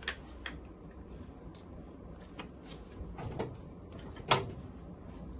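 Light clicks and knocks of tools and parts being handled during an oil change on a motorbike, with one sharp, louder knock about four seconds in.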